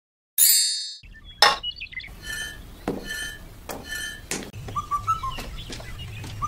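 Miniature clay bricks clinking and clicking against each other as they are set down one by one by hand, a series of short, slightly ringing clinks.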